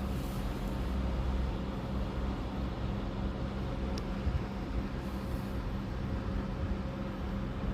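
Steady low mechanical rumble and hum with a faint constant whine, and one tiny click about four seconds in.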